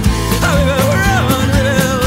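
Background music: a song with a steady beat and a wavering melody line.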